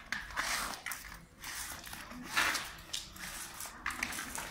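Child's roller skates rolling and scraping on a concrete floor, in uneven noisy swells.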